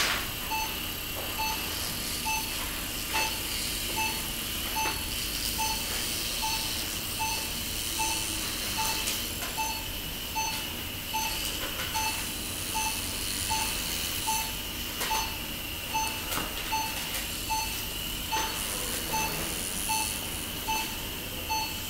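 Surgical power burr running with a steady high whine as it cuts the bone of the little toe's intermediate phalanx. Over it a patient monitor beeps regularly, about one and a half times a second.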